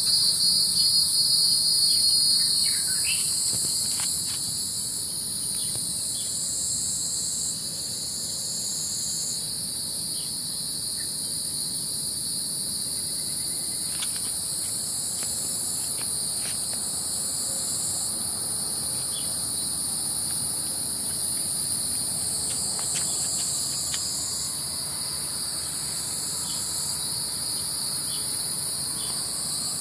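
Insect chorus: a steady high-pitched buzzing trill in two layers, the upper layer shifting in pitch every few seconds. A few faint ticks come through underneath.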